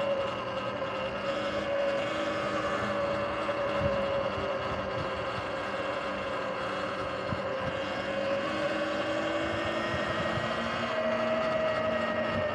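Sur-Ron electric dirt bike riding along a paved path: the electric motor and drive give a steady whine that sags and rises a little with speed, over tyre and wind noise, with a few light knocks from bumps.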